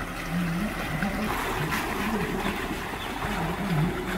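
Jeep Wrangler driving slowly through a shallow rocky stream: the tyres splash and churn the water while the engine runs at low revs, its note rising and falling with the throttle.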